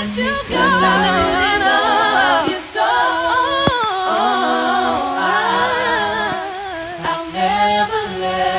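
A cappella vocal music: a lead voice singing a wavering melody with vibrato over lower voices holding long harmony notes.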